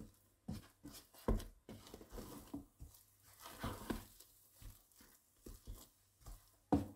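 Wooden spatula stirring thick mashed potatoes in a pot: soft squelching scrapes with irregular light knocks of the spatula against the pot.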